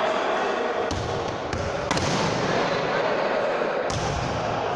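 A ball thudding a few times in a sports hall, over a steady echoing hubbub.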